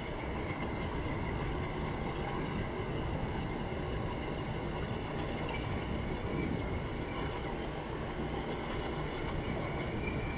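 Motorcycle engine running at a steady cruising speed, with wind and road noise and a thin high whine over it.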